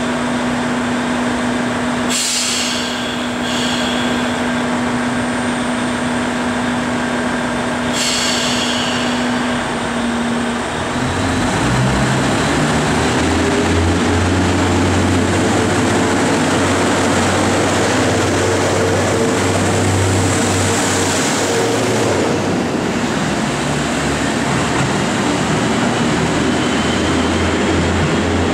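KiHa 25 diesel railcar idling at the platform with a steady hum, broken by two short hisses of air about 2 and 8 seconds in. From about 11 seconds its diesel engine opens up to a low, rising drone as the train pulls out and accelerates away.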